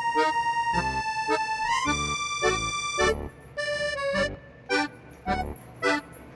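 Background music led by accordion: held melody notes stepping up in pitch over a regular bass and chord beat.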